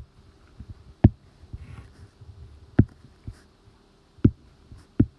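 Stylus tip tapping and scratching on an iPad's glass screen as digits are handwritten: a few sharp taps roughly a second apart, with fainter ticks between, over a faint steady hum.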